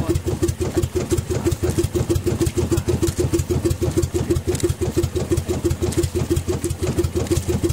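Engine of a small motorized outrigger boat running steadily at a constant speed, with an even, rapid chugging beat of about six pulses a second.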